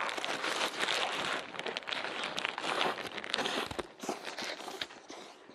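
Biting into and chewing an egg mayo sandwich close to the microphone, with the paper wrapper crinkling in the hands; a dense crackle that thins out after about four seconds.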